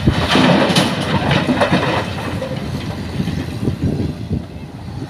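Soil and rocks pouring from an excavator bucket into a dump truck's steel bed, a rattling clatter for about the first two seconds, then the Hitachi excavator's diesel engine running as the emptied bucket is raised.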